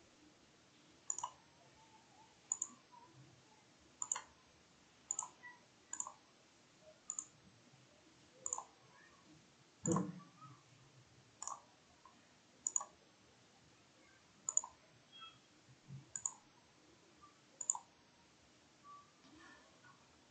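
Computer mouse button clicking, faint and spaced about a second or so apart, as trace segments are placed one click at a time during manual PCB routing. A single duller thump about halfway through is the loudest sound.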